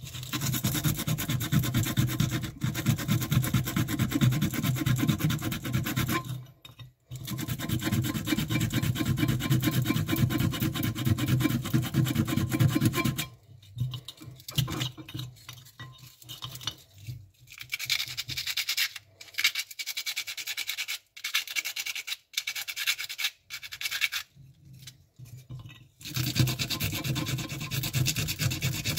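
Fast back-and-forth scrubbing of a small metal part with a yellow abrasive, scouring off black grime. The strokes run steadily, break into shorter runs about halfway through, then run steadily again near the end.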